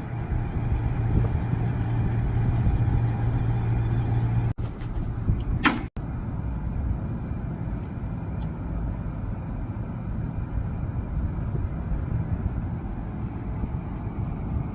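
Air-conditioning unit running with a steady low mechanical hum. Audio cuts out briefly twice around the middle, with one sharp click between the cuts.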